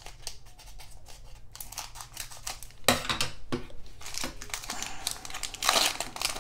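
Scissors cutting open a plastic cellophane trading-card pack, the wrapper crinkling as it is handled, with a louder crackle about three seconds in and more crinkling near the end.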